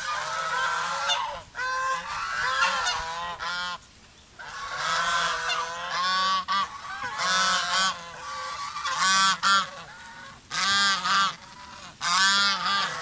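A flock of white domestic geese honking repeatedly, with many overlapping calls and a short lull about four seconds in.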